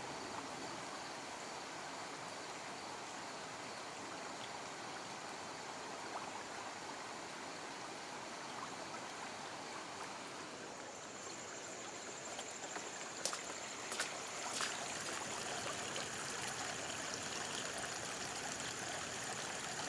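Rainwater runoff streaming steadily over pavement and grass during a flash-flood downpour, with a few sharp clicks about two-thirds of the way through.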